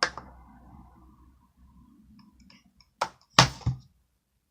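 A sharp click, faint handling rustle, then a quick run of three sharp plastic clicks and knocks about three seconds in, the middle one loudest, as a slime container is handled and opened.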